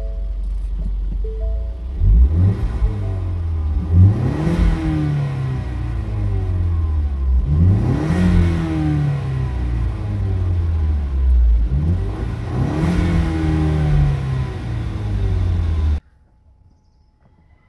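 Ford Mustang engine idling, then revved four times in park, each rev rising quickly and falling back slowly to idle. The sound cuts off suddenly near the end.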